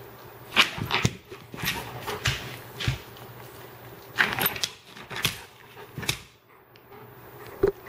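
A dog pawing and scratching at a hardwood floor, chasing a laser dot: a run of short scrapes and claw clicks, irregularly spaced, with a brief lull near the end and one sharp click just before it ends.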